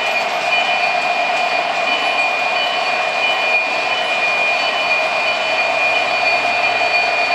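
O-gauge model freight train running on the layout's track, a steady rolling rumble of wheels and motors with a steady high-pitched whine over it.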